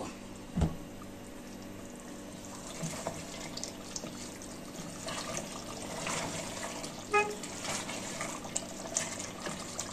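Mutton curry masala sizzling and bubbling on high heat in an open aluminium pressure cooker, stirred and scraped with a wooden spatula, as the water cooks off. A soft knock about half a second in.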